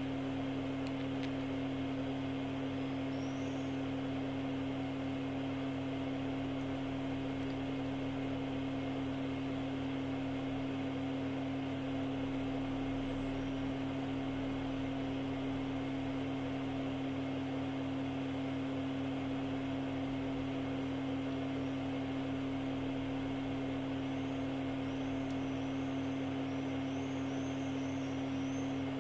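Steady machine hum: one strong pitched tone over a lower drone, unchanging throughout.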